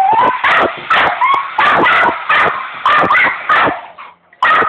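Dog barking rapidly and repeatedly, about two barks a second, with some barks breaking into yips; after a short break near the end comes one more bark. The barking is her reaction to a hairdryer being pointed at her.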